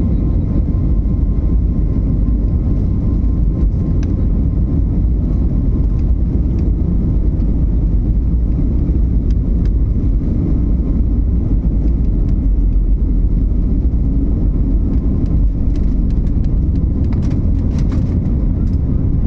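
IndiGo airliner's engines and airflow making a steady low rumble, with a few faint clicks or rattles near the end.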